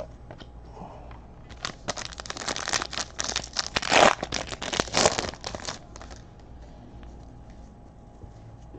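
A trading-card pack wrapper being torn open and crinkled: a dense crackly rustle that starts about a second and a half in, peaks around the middle and stops about two seconds before the end.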